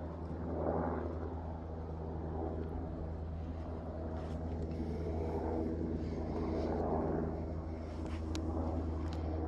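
A motor or engine running steadily with a low drone. Over it, a rushing sound swells and fades every second or two.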